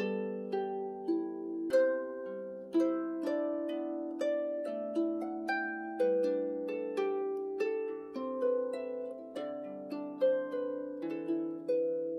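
Celtic harp playing as background music: plucked notes and chords, several a second, each ringing on and fading.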